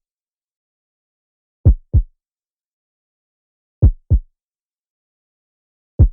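Heartbeat sound effect: slow double thumps (lub-dub), one pair about every two seconds, with silence between. Two full pairs sound, and the first thump of a third comes near the end.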